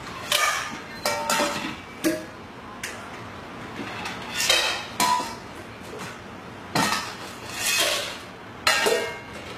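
A series of about nine irregular knocks and clatters of hard objects, some followed by a short ring.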